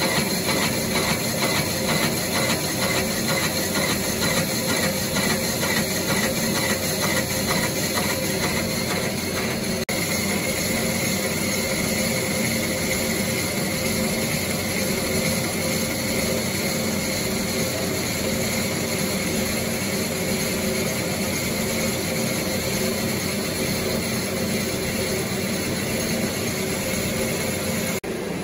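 Colchester Chipmaster lathe running under cut while a tool turns a cast iron flywheel: the machine's steady drive tones under the gritty scrape of the cutting tool. A fast, even ticking runs through the first ten seconds or so, then the sound settles steadier.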